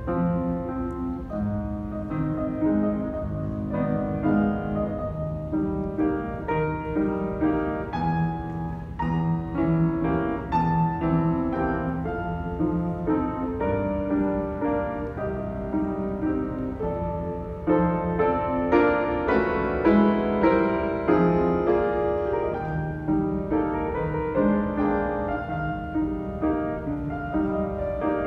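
Piano played solo, a flowing piece of ringing notes and chords that swells louder about two-thirds of the way through.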